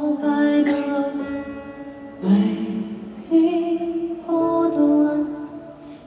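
Male singer singing a slow English-language ballad live through a stadium sound system, in a line of long held notes that change pitch every second or two.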